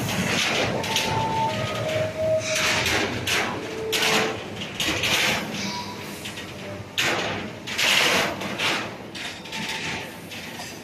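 Heavy-gauge steel-coil cut-to-length line running: steel plate clattering over the rollers and through the machinery in irregular bursts of noise and clanks, with a few short metallic squeals.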